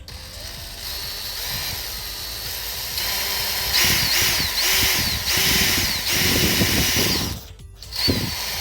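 Power drill with a 3/16-inch bit boring the marked holes in a motorcycle front bumper. The motor whine rises and falls again and again as the bit bites in, gets louder a few seconds in, then stops briefly and gives one last short burst near the end.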